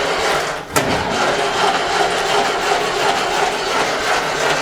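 1955 Ferguson TEA-20 tractor engine being cranked over by its starter motor, a steady loud churn with a brief break and click under a second in. It turns over without catching: the engine is not firing.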